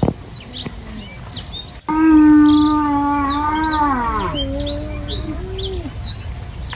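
Small birds chirping throughout, and about two seconds in a farm animal gives one long, steady call that falls in pitch partway through and trails on lower for a couple more seconds.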